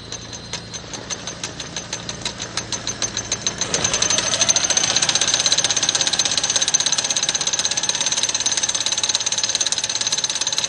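Gears inside an opened Ducati Desert Sled motor clacking as it is turned: separate clicks speed up over about four seconds into a fast, steady rattle with a high ringing. The owner blames bent parts inside, left by a crash, that make the gears knock against each other.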